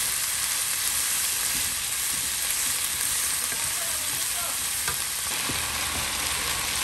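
Sliced onions frying in a little oil in a nonstick skillet, a steady sizzle, stirred with a wooden spatula that gives a few light taps against the pan.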